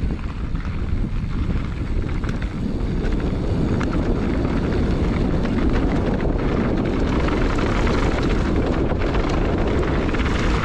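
Steady rush of wind over the microphone while a mountain bike is ridden, with the tyres' rumble on the trail and scattered small rattles.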